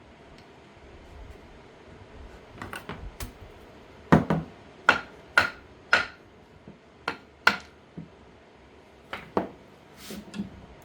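Irregular sharp knocks and clacks, about a dozen spread over several seconds, as workshop tools and wood pieces are handled and set down on a bench.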